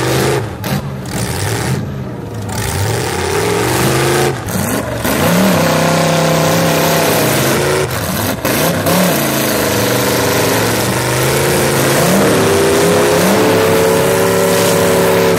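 Engines of full-size demolition derby cars revving hard and falling back, over and over, as the cars shove against each other. More than one engine is heard at once, and their pitches rise and fall across each other.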